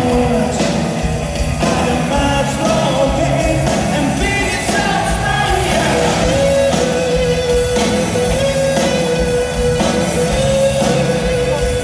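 Live rock band playing electric guitar and drums, with singing, heard from among the crowd. About halfway through, one long note is held for several seconds.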